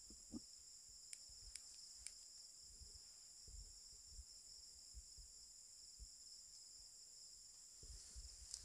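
Night insect chorus: a steady, high, shimmering trill in several pitches. Under it are faint low rustles and thumps from someone moving through the grass, and a few soft clicks in the first couple of seconds.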